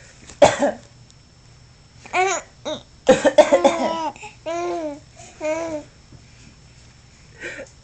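An adult coughs, sharply about half a second in and again around three seconds in, and a small child answers with short, high-pitched bursts of laughter and squeals; the coughing is what sets the child laughing.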